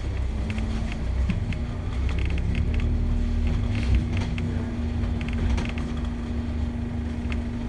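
Cabin noise of a moving New Routemaster hybrid double-decker bus: a low engine and drivetrain rumble with a steady hum, plus road noise.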